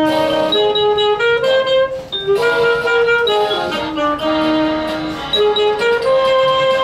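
Saxophone playing a melody live, mixing held notes with quicker runs.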